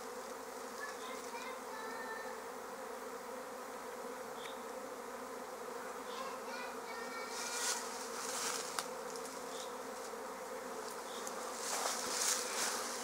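A swarm of honeybees on the wing, humming steadily as the swarm issues and settles into a cluster on a tree trunk. A few brief hissy noises come about eight seconds in and near the end.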